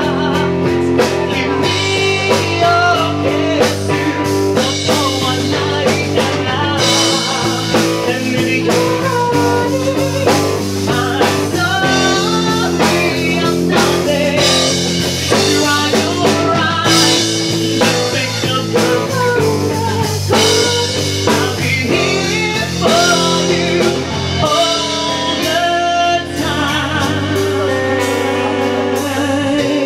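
Live rock band performing: a male vocalist sings into a microphone over electric guitar and drum kit.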